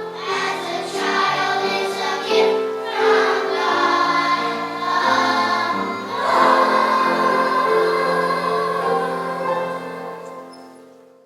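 A choir singing slow, sustained chords, ending on a held chord that fades away over the last few seconds.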